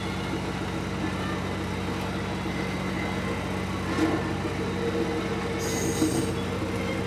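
Running noise inside an E26 series Cassiopeia passenger car in motion: a steady hum with several steady low tones over the rumble of wheels on rail. There is a sharp knock about four seconds in and a brief high hiss or squeal near six seconds.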